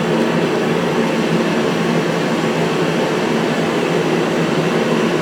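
Steady machine drone with a low, even hum that holds at one level throughout, with no strokes or changes.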